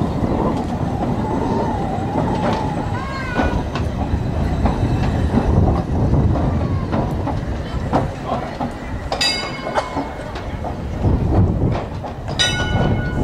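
Vintage open-top double-deck electric tram rolling past on street track: a steady rumble with the repeated clatter of its wheels over the rails. Two short metallic rings sound near the end.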